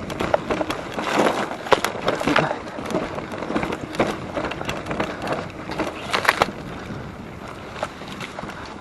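Mountain bike rattling down a rough trail: a run of irregular clicks and knocks from the frame, chain and tyres over bumps, over a steady rush of tyre and wind noise.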